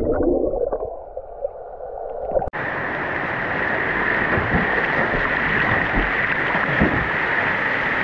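Muffled gurgling of water heard with the microphone under water. About two and a half seconds in it breaks off abruptly into the steady rush of a waterfall pouring into a pool.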